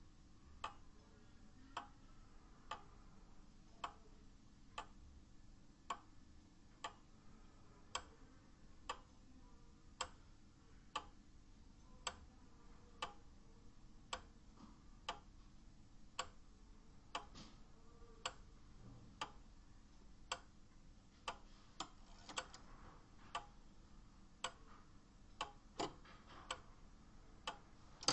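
Seiko (Seikosha) 30-day pendulum wall clock movement ticking: the escapement gives steady, evenly spaced ticks as the pendulum swings, a sign the movement is running.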